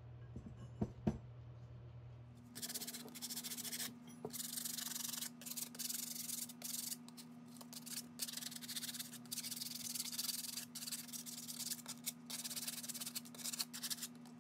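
Sandpaper rubbed back and forth by hand over the rusty steel shank of a receiver hitch, scrubbing off surface rust in repeated strokes with short breaks, starting about two seconds in after two short knocks.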